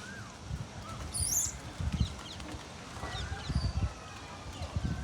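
Scattered short bird chirps and whistles, with one high, quick warble about a second in, over irregular low thumps and rumbles.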